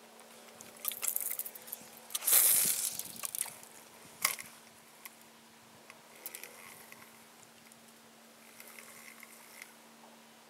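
Splashing and scuffing noises from fishing gear and water around a small boat: a short burst about a second in, a louder one from two to three and a half seconds in, and a sharp click at about four seconds, over a faint steady hum.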